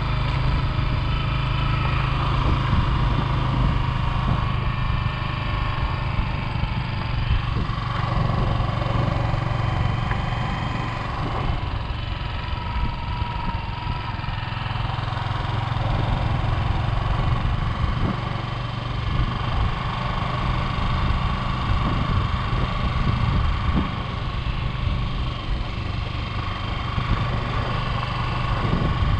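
Motorcycle engine running steadily while the bike is ridden along a dirt road.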